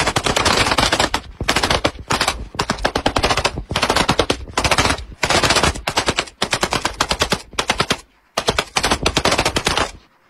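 Automatic weapons of an air-defence fire group shooting at a Shahed attack drone, rapid fire in bursts: a long unbroken burst first, then shorter bursts with brief pauses between them, stopping about ten seconds in.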